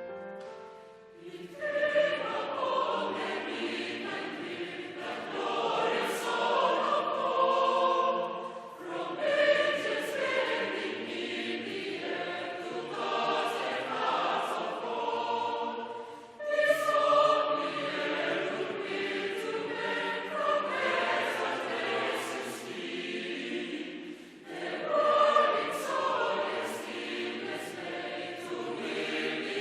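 Classical choral music: a choir singing sustained phrases, each broken by a brief pause roughly every eight seconds.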